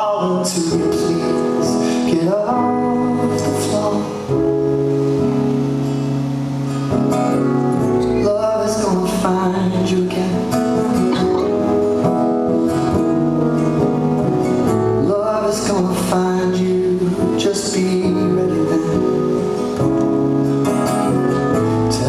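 Live music: a man singing into a microphone over a strummed acoustic guitar, with the band playing along.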